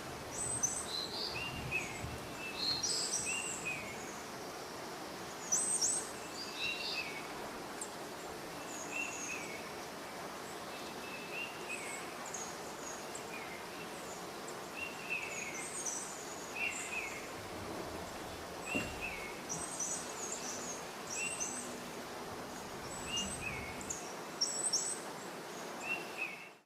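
Steady rain on forest leaves, with songbirds calling over it again and again in short chirps and whistles, some high and some lower. The sound cuts off suddenly at the end.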